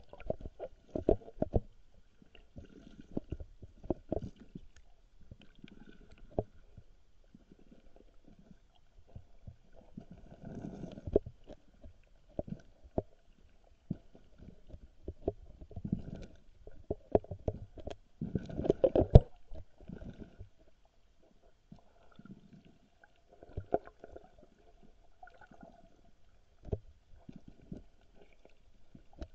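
Muffled underwater knocks, bumps and rumbling from a cast net and its camera being dragged through the water, irregular throughout, with a cluster of louder knocks about two-thirds of the way through. A faint thin whine runs in the background.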